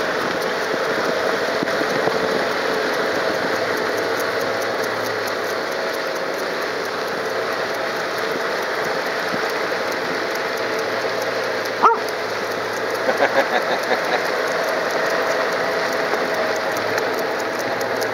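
Steady rushing noise of moving along beside a trotting setter, with a few short yips from the dog about two thirds of the way through, its happy 'talking' while it runs.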